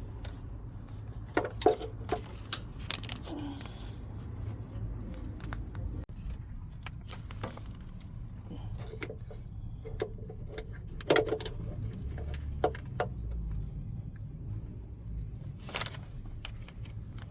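Metal clinks and clanks of hand tools and engine parts being handled during an engine teardown, a dozen or so scattered knocks over a steady low hum.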